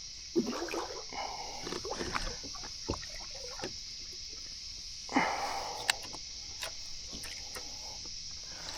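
Irregular water splashes and light knocks around a kayak, the strongest splash about five seconds in, over a steady high drone of insects.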